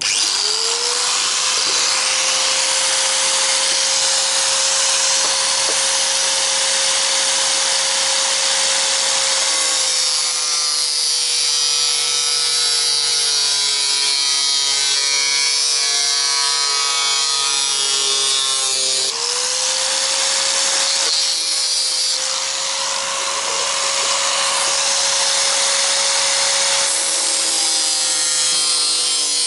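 Disc grinder spinning up and cutting into a metal fuel can: a steady high motor whine over a harsh grinding hiss. The whine drops in pitch as the disc is loaded in the cut, jumps back up about two-thirds through, then sags again near the end.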